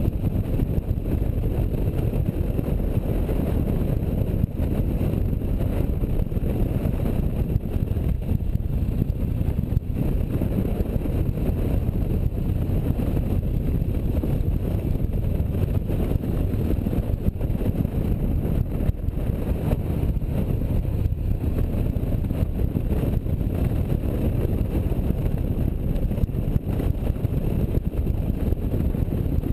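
Touring motorcycle riding at road speed: a steady engine and road roar mixed with wind buffeting the microphone.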